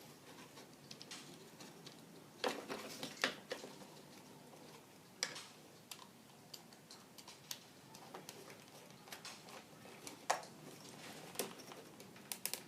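Faint, irregular clicks and taps of wires and small electrical fittings being handled while neutral wires are connected, with a few sharper clicks scattered through.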